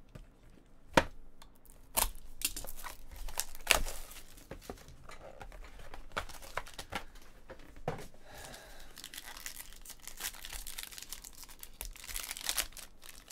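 Packaging of a baseball card box being torn open and crinkled, with sharp clicks and knocks as cardboard and cards are handled. The crinkling thickens near the end.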